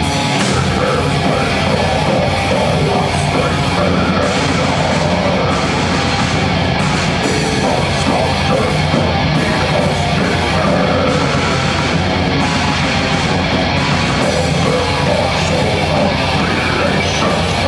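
Heavy metal band playing live at full volume: electric guitars, bass guitar and drum kit, with the vocalist singing into the microphone.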